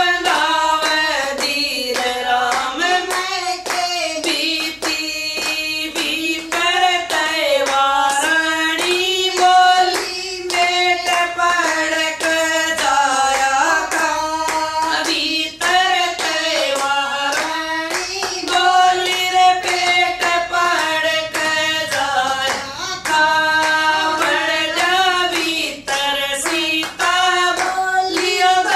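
Women singing a Haryanvi devotional bhajan together, keeping time with steady rhythmic hand claps.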